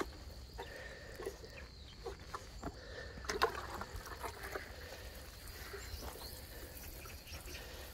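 Fine spray from a plastic watering can's rose sprinkling onto bare soil: a faint, steady hiss of falling water with scattered light ticks of drops.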